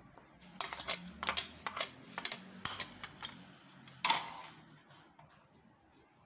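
A metal spoon tapping and scraping against a plate and the metal cooking pot: a run of quick clicks and knocks, with a louder ringing clink about four seconds in.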